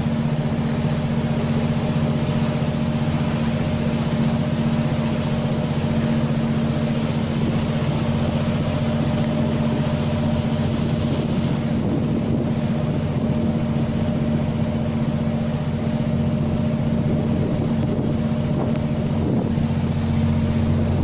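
Ferry engine running at a steady pitch: an unchanging low hum, with an even hiss of water and wind over it.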